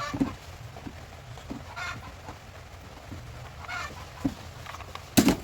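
Several short bird calls, spaced out, over a steady low background, and a single loud, sharp burst near the end.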